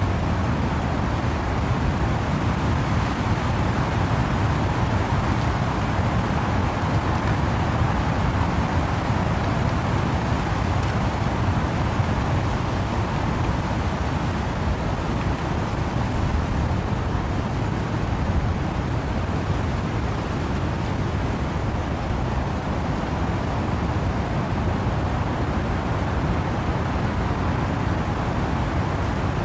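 Wind and rain rushing through trees in a steady, dense wash, heavy in the low end, with no separate drops or gusts standing out.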